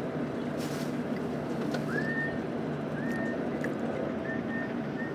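Steady outdoor background noise at a gas station forecourt, with a brief hiss under a second in. Four short, high whistled notes at the same pitch, each rising and then holding, come about two, three, four and five seconds in.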